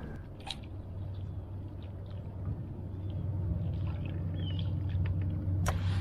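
A steady low motor hum that grows slightly louder, with a single sharp click near the end.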